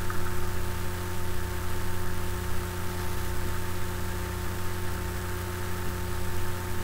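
Steady hum at several fixed pitches under an even hiss, with no distinct sound standing out.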